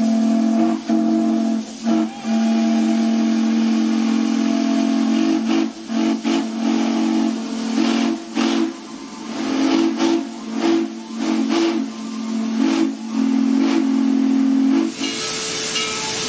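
Steam locomotive whistle sounding a low chord of several notes in long blasts broken by brief gaps. Near the end the whistle stops and a steady hiss of escaping steam takes over.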